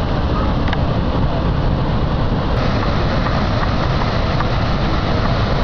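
Niagara Falls: the steady, loud rush of the falling water, an even noise with no breaks.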